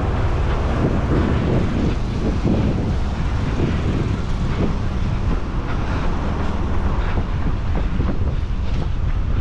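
Wind buffeting a moving microphone on a running person: a steady, loud, low rumble with rushing noise, and faint irregular taps throughout.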